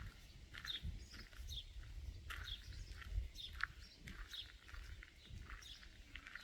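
Birds chirping, short high notes several times a second, over a low rumble with soft thuds.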